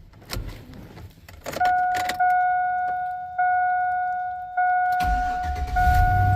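Keys jangling and clicking in the ignition of a 2002 Chevy Tahoe, then the dash warning chime repeating about once a second. About five seconds in, the V8 engine catches and starts running with a low rumble. This is the first start after its rodent-chewed injector wiring was repaired.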